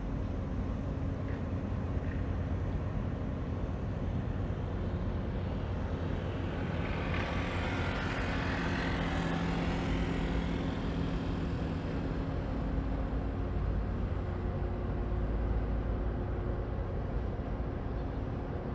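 Loaded Panamax bulk carrier passing close, its engines droning steadily with several low hum tones. A rushing hiss swells and fades around the middle.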